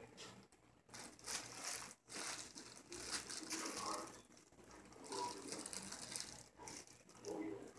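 Fabric rustling as a kitten paws and moves over a blanket on a bed, coming in several hissing bursts of a second or two each.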